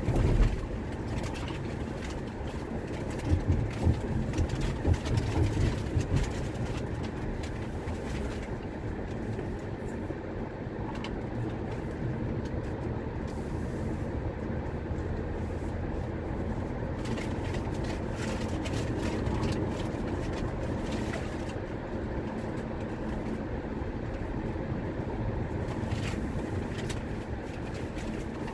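Car cabin noise while driving: a steady low rumble of engine and tyres on the road, with a cluster of louder low thumps a few seconds in and scattered faint clicks and rattles.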